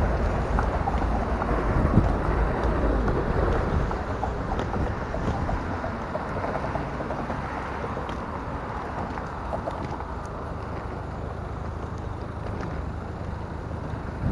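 City street traffic at a crossing, a steady wash of passing cars with low wind rumble on the microphone. There is a sharp knock about two seconds in, and the traffic noise eases a little after about four seconds.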